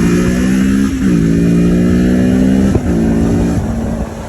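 Kawasaki motorcycle engine running and revving under way, its pitch dipping briefly about a second in and again near three seconds, then dropping off in level near the end.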